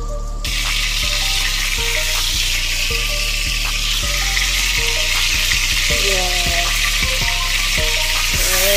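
Shrimp frying in a pan of hot butter: a steady sizzle that starts suddenly about half a second in.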